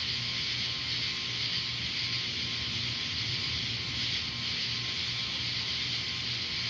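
Steady, high-pitched hiss of outdoor night ambience with a low hum beneath it, unchanging throughout, with no thunder.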